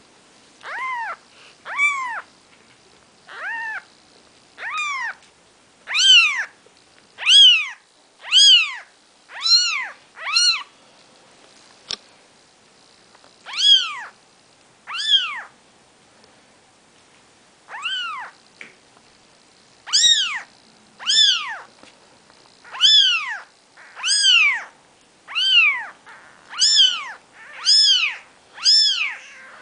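Four-day-old Maine Coon kittens mewing: a long run of short, high cries, each rising then falling in pitch, about one a second with a couple of brief pauses.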